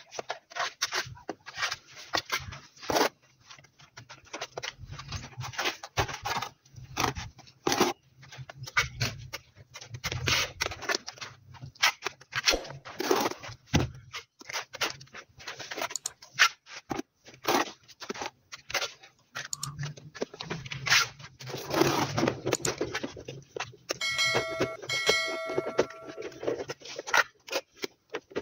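Steel trowel scraping and slapping tile adhesive onto a plastered wall in quick, irregular strokes. About 24 seconds in, two short high-pitched tones sound, each under a second.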